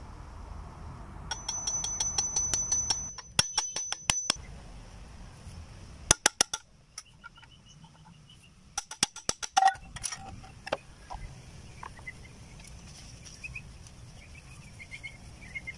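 Runs of sharp metallic clicks and clinks from tools and loose parts as a pressure washer pump's crankcase is dismantled, in several quick bursts with pauses between.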